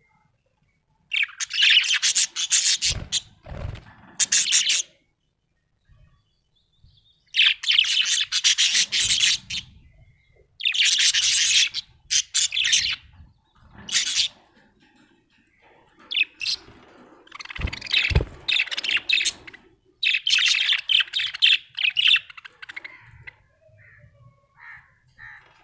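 Budgerigar chirping and chattering happily in bouts of a few seconds separated by short pauses. Two brief low thumps come in, about three seconds in and again past the middle.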